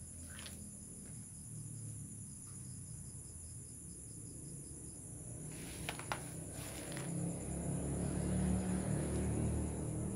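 Steady high-pitched chirring of insects, with a low rumble that grows louder in the second half and two sharp clicks about six seconds in.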